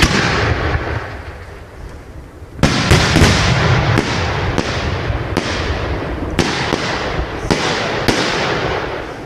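Fireworks going off: the crackle of a burst fades over the first two seconds or so, then from about two and a half seconds in comes a rapid string of bangs, roughly two a second, with crackling in between.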